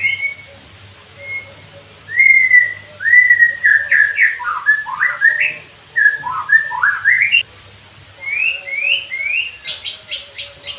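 White-rumped shama (murai batu) singing: loud whistled notes that slide up and down in varied phrases, then a quick run of short, sharp repeated notes near the end.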